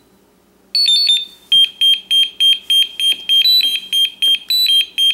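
Kong Power multi-charger's buzzer sounding its error alarm: a quick run of higher beeps about a second in, then a steady train of short rapid beeps, about three a second. It is the charger's warning for error E2, connection break.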